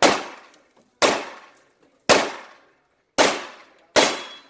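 Five pistol shots fired at a slow, deliberate pace, roughly a second apart, the last two a little closer together, each with a short ringing decay.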